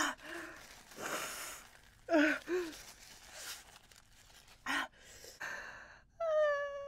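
A woman gasping and sighing in pain from the burn of an extremely hot chip: breathy gasps, short whimpers, and near the end a drawn-out high-pitched cry.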